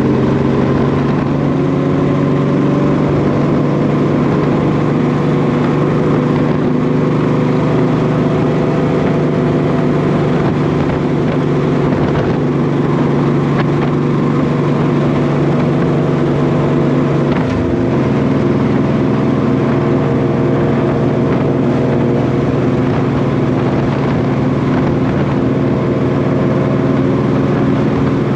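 1998 Honda VT1100 Shadow Ace Tourer's 1100 cc V-twin engine running steadily under way, heard from the rider's chest, with a brief break in the engine note about two-thirds of the way through, after which it carries on at a slightly different pitch.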